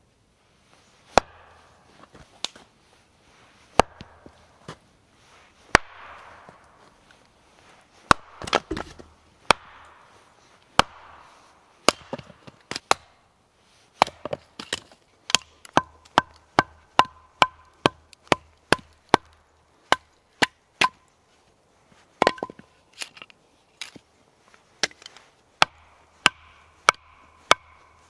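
Hatchet chopping and splitting a short log on a stump chopping block, sharp woody blows a second or two apart at first, then quicker, about two a second, in the second half.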